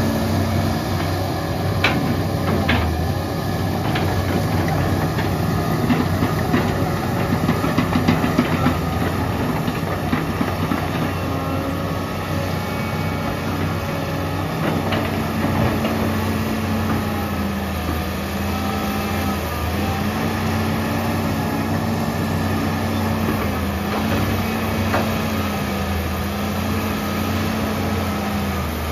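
Komatsu PC150-5 excavator's diesel engine running steadily while it works. A few sharp knocks come in the first several seconds, and a wavering held tone is heard through the second half.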